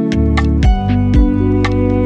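Lo-fi hip hop instrumental: mellow held chords over a laid-back beat with regular drum hits.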